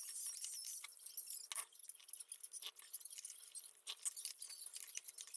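Eating sounds: irregular small clicks and clinks of utensils against dishes, with the wet clicks of chewing.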